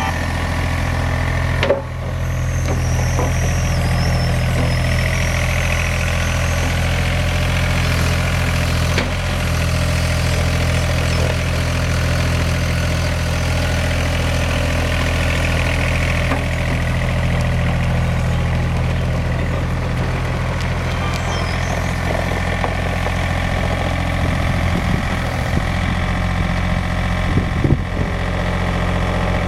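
John Deere 27CZTS mini excavator's diesel engine idling steadily.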